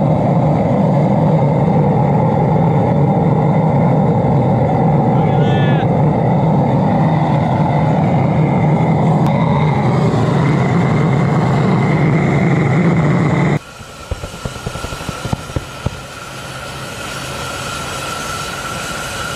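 Homemade high-velocity diesel burner firing into a small foundry furnace, running loud and steady with a strong low hum. About thirteen seconds in it drops abruptly to a quieter steady sound with a high whine and scattered crackles, which builds slightly near the end.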